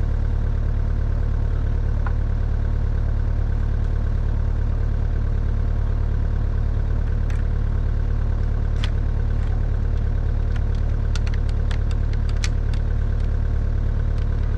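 Kubota U55-4 mini excavator's four-cylinder diesel engine idling steadily, with a handful of sharp metallic clicks in the second half.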